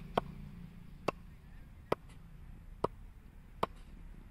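Cricket ball bounced again and again on the face of an SS Ton MS Dhoni 'Thala' edition bat: five sharp wooden pings a little under a second apart. This is a ping test of the bat's response off the face.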